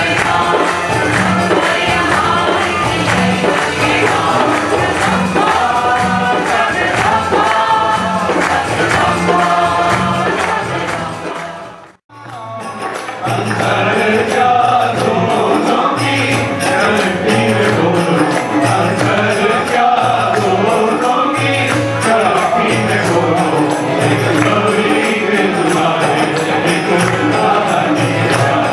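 Devotional song with group singing over a steady percussion beat. It fades out about twelve seconds in, and a second song with voices and rhythm starts straight after.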